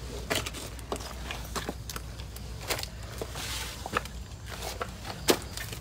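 Footsteps on concrete steps strewn with dry leaves: irregular crackles and crunches of leaves underfoot, with a brief rustle about three and a half seconds in.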